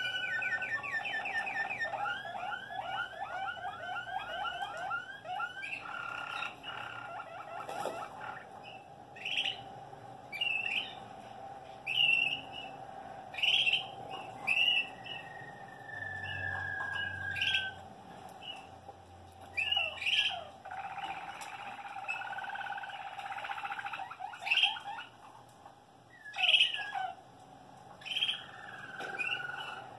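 Malinois Waterslager canaries singing in their show cages: a held note, then a fast rolling run of repeated notes for the first several seconds, followed by short separate phrases every second or two, one of them a long falling note about halfway through.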